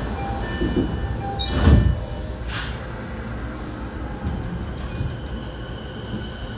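Running noise inside a Tokyo Waterfront Area Rapid Transit 70-000 series electric train car under way: a steady rumble of wheels on track. About a second and a half in there is a brief loud burst of noise, and a fainter one about a second later.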